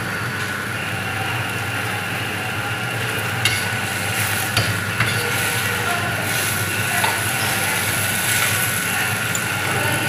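Sliced lotus root sizzling in a black wok over a gas burner as it is stir-fried with a metal ladle, with a few sharp clinks of the ladle against the wok around the middle.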